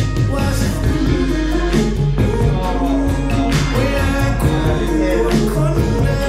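Thai pop song playing: singing over a steady drum beat and a heavy bass line.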